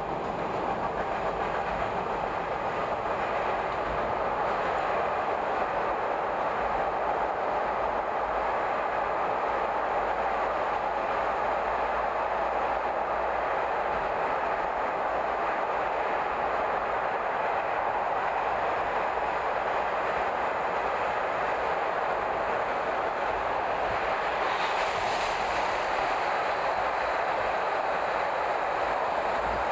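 Chicago L rapid transit train running through a subway tunnel: steady noise of wheels on rail, with a higher hiss joining in about 25 seconds in.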